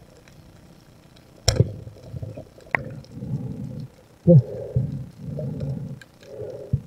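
Speargun shot underwater: a sharp crack about a second and a half in, then a lighter click as the spear strikes a fish. After it come low, muffled gurgling rushes about once a second.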